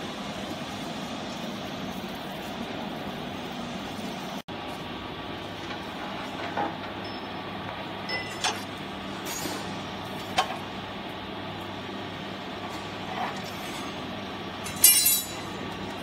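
Steady machine hum, with a few short clicks and scrapes and a brief rattle near the end as plastic baling strap is threaded through the channels under a compressed cardboard bale in a vertical baler.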